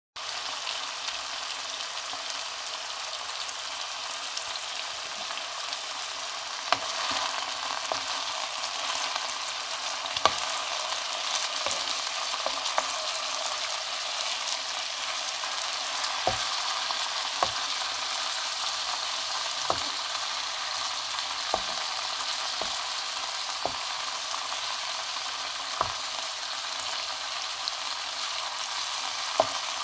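Food frying in a pan with a steady sizzle. Sharp clicks every second or two sound like a utensil knocking against the pan as it is stirred.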